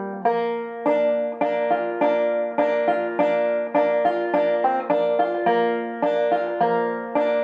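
Five-string banjo picked slowly at about two to three notes a second, each note ringing out over the chords. It is tuned a whole step below double C, to F–A♯–F–A♯–C.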